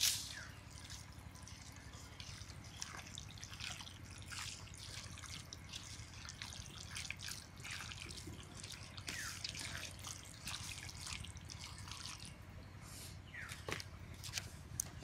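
A hand squishing and tossing raw chicken in an oily, spicy marinade with sliced onion in a steel bowl: irregular wet squelches throughout. A sharp click at the very start is the loudest sound.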